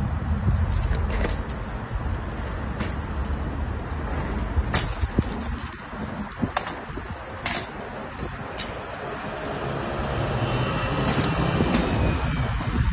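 Steady city traffic noise with several sharp knocks and clicks scattered through it, from a BMX bike's wheels and frame landing and hopping on brick paving.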